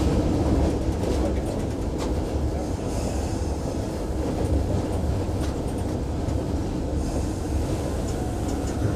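Steady rumble inside the cab of an EMD F59PH diesel locomotive under way, its 12-cylinder 710 engine and wheels on the rails running together, with a few light clicks from the track.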